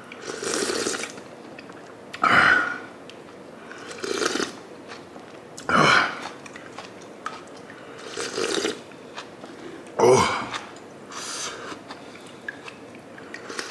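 Close-up eating sounds of a person having sundae gukbap: short slurps of hot broth and mouthfuls about every one and a half to two seconds, a few of them noticeably louder, with faint chewing between.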